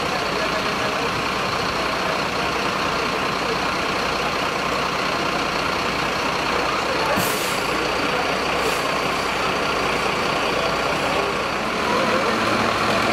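Diesel engine of a Mercedes-Benz fire brigade aerial ladder truck running steadily, with a short hiss about seven seconds in. It gets slightly louder near the end.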